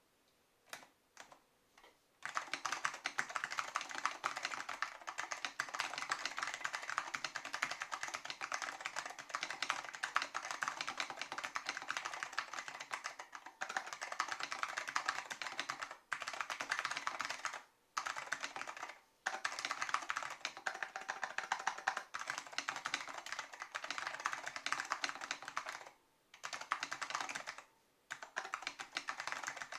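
Apple M0116 keyboard with Alps SKCM Orange mechanical switches being typed on. A few single keystrokes, then fast continuous typing from about two seconds in, broken by brief pauses several times.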